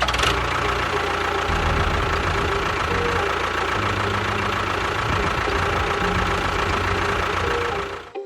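Small motor of a DIY mini tractor-type machine running steadily, cutting off near the end.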